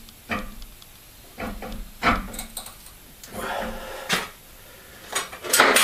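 Steel parts of a homemade threaded-rod punch press knocking and clinking as they are handled by hand, the hex punch and round die being lined up and the top plate lifted. Several separate clanks, a short scrape in the middle, and the loudest clatter near the end.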